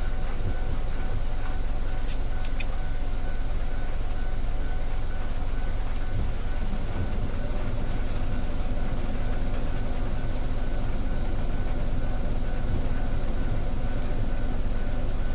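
Vehicle engine idling with a steady low rumble while stopped, with faint constant tones above it and a couple of small clicks about two seconds in.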